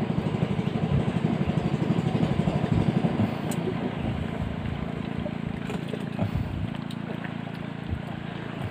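A motor running, rough and pulsing for about the first three seconds, then settling into a steadier, slightly quieter hum.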